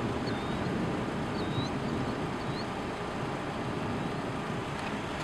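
Steady low rushing background noise with no distinct engine tone, and a few faint short chirps of a bird early on.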